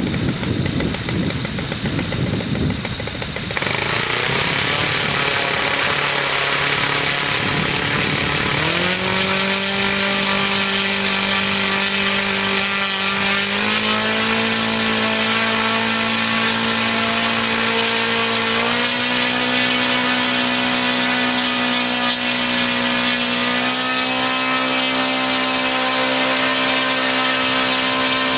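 O.S. FS-200S four-stroke glow engine running. About three and a half seconds in it gets louder and speeds up, and its pitch then steps up a notch four times, settling steady between each step.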